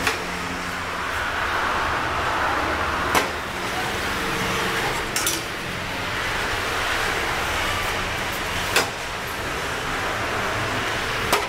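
Manual sheet-metal bending brake being worked on a strip of thin painted sheet steel: a handful of sharp metallic clicks and clanks, a few seconds apart, over a steady background hiss.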